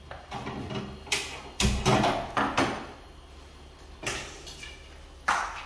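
Kitchen handling noise: about six separate knocks and clatters of utensils and steel dishes on a counter, the loudest a low thump about two seconds in.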